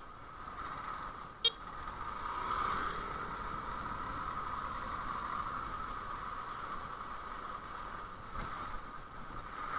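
Steady road traffic noise, with one short sharp click about one and a half seconds in.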